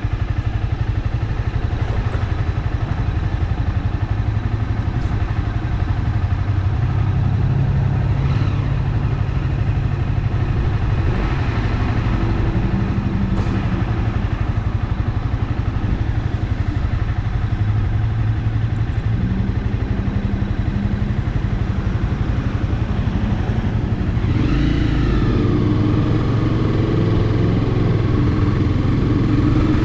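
Honda CBR300R's single-cylinder engine running as the motorcycle is ridden, its pitch stepping up and down several times.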